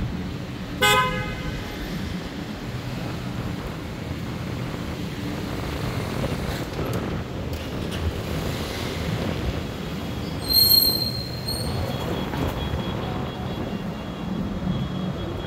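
Steady street traffic noise with a short car horn toot about a second in. A brief, loud, high-pitched squeal comes about ten seconds in.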